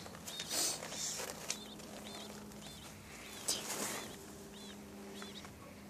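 Ducklings peeping: a string of short, high chirps throughout, with two brief louder noises about half a second and three and a half seconds in.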